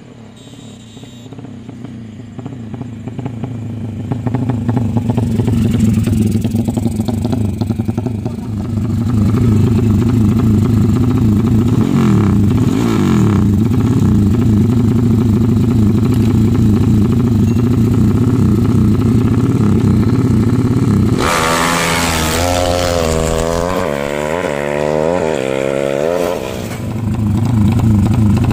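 Motorcycle engine running hard during a speed test, growing louder over the first few seconds and then holding a steady drone. About three quarters of the way through, a higher, wavering engine note comes in for several seconds, then the steady drone returns.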